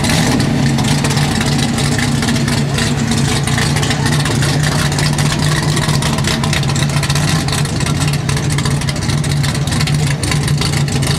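Engine of a square-body Chevrolet 4x4 street-class pulling truck running steadily at high revs under full load as it drags the weight sled down the track.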